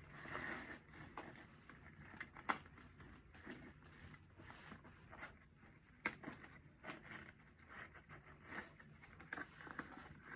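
Hands handling gift-basket materials: light rustling with scattered small clicks and taps, the sharpest about two and a half seconds in.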